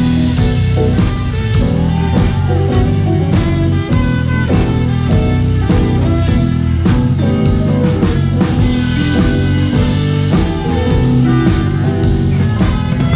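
Live rock band playing, with the drum kit close and prominent: sharp drum and cymbal hits about twice a second over electric guitar and sustained low notes.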